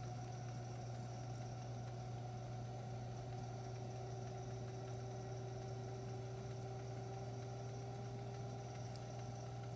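Electric potter's wheel running steadily, its motor giving a constant low hum with a few fainter steady whines above it.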